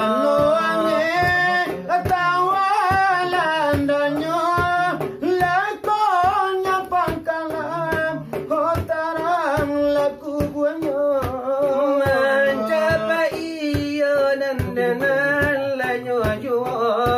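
Selawat dulang: men singing a melismatic Minangkabau devotional chant while beating large brass trays (dulang) with their fingers in a quick, steady rhythm.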